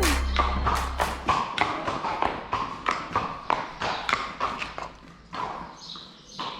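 Pony's hooves clip-clopping on hard ground at a walk, about three steps a second, growing fainter.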